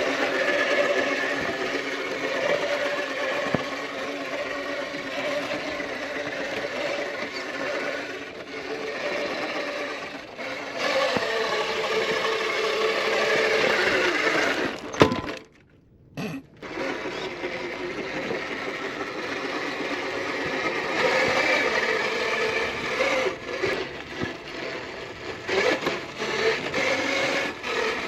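The electric motor and geared drivetrain of a 1/10-scale RC rock crawler whine as it is driven, the pitch rising and falling with the throttle, with intermittent crunching. The sound cuts out briefly about halfway through.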